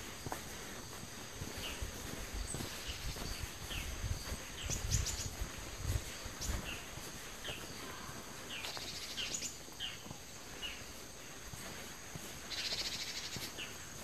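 Forest ambience of small birds giving short, scattered chirps over a steady high insect drone, with two brief buzzing trills. A few low thuds come near the middle.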